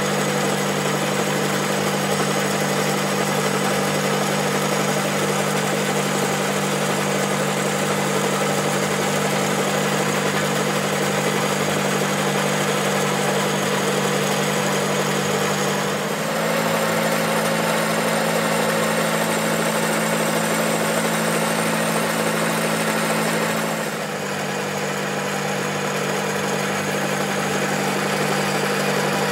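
Metal lathe running steadily, turning a CV joint's splined shaft against a tool bit: a steady machine hum that shifts slightly higher for several seconds partway through.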